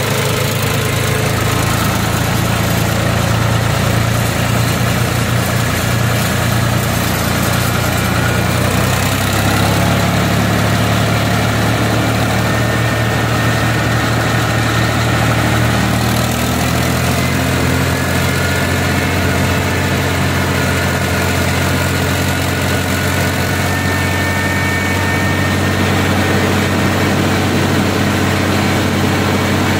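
Mahindra B-275 DI tractor's diesel engine running steadily under load, heard from on board the tractor as it climbs a hill road.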